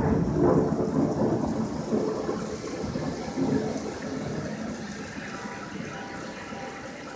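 Rolling thunder from a strong thunderstorm, a deep rumble that dies away steadily over several seconds.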